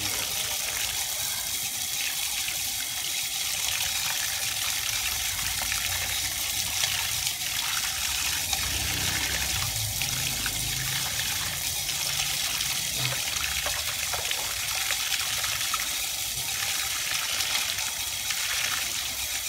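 Water running in a steady stream from an outdoor pipe, splashing onto wet concrete and into a plastic bowl, with hands rinsing eels under it.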